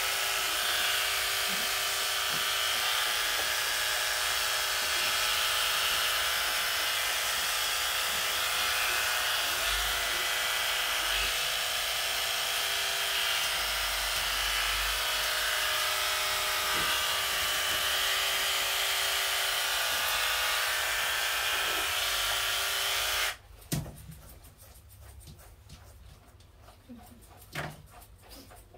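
Electric pet-grooming clippers running with a steady whir. The whir stops suddenly about 23 seconds in, leaving a few faint clicks.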